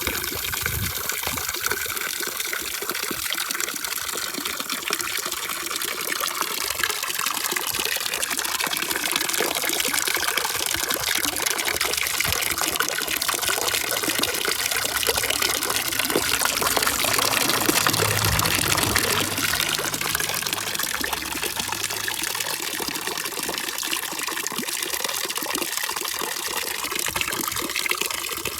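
Running water: a steady, dense rush with trickling texture that swells slightly midway and then settles. It serves as a continuous sleep-noise bed.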